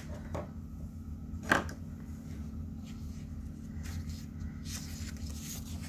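Sheet of paper being handled and turned: a sharp tap about a second and a half in, a few faint ticks, then soft paper rustling near the end, over a steady low hum.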